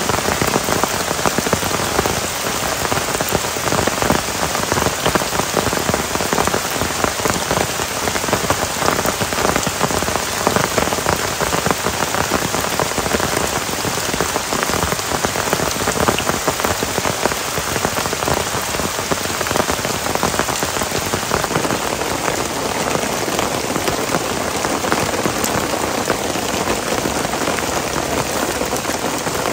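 Heavy rain pouring steadily, a dense, even patter of drops with no let-up.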